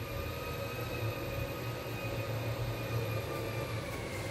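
Steady machine hum with thin high whining tones, which dip slightly in pitch about four seconds in.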